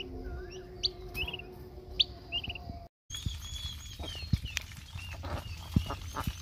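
Birds chirping: short high curling peeps repeated every half second or so, with a few sharp clicks and knocks. The sound breaks off for a moment about three seconds in, then the chirping goes on.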